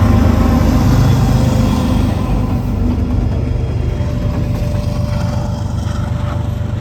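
Diesel-electric freight locomotive engines running as a coal train passes, a steady low hum that slowly fades.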